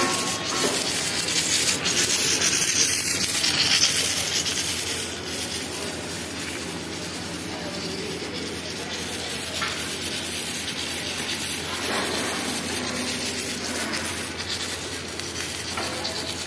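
Harsh, steady hissing and sizzling from rail welding work on the track, loudest over the first four seconds and then settling slightly quieter.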